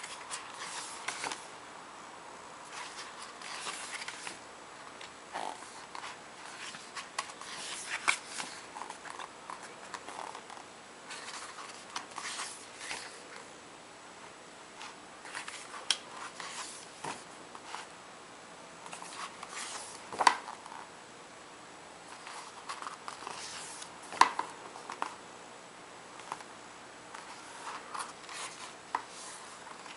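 Handling noises from a Blu-ray digibook and its packaging: irregular rustling with scattered sharp clicks and taps, the loudest about twenty and twenty-four seconds in.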